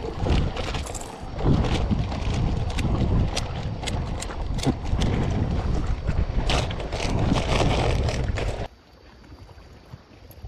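Wind buffeting the microphone as a rough low rumble, with scattered sharp clicks and knocks. It cuts off abruptly near the end to a faint background hiss.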